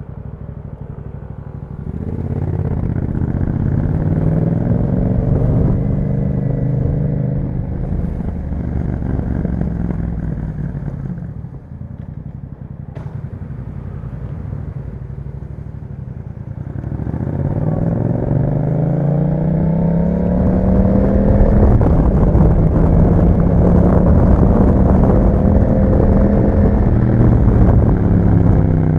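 Yamaha MT-07's 689 cc parallel-twin engine through an Akrapovic exhaust, ridden on the road. The revs climb about two seconds in and ease off before ten seconds. After a quieter stretch with one sharp click, the revs climb again from about seventeen seconds in and hold steady and loud at speed.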